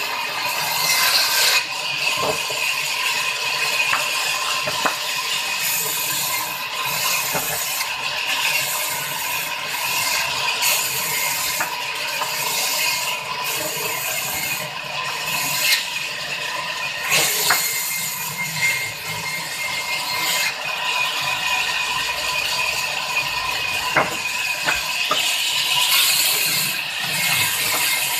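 Sawmill band saw running and cutting through timber: a steady mechanical whir and hiss, with a few scattered knocks.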